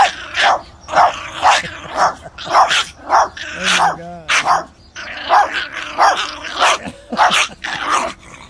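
Chihuahuas barking sharply and rapidly, about two barks a second, with a longer wavering call about four seconds in.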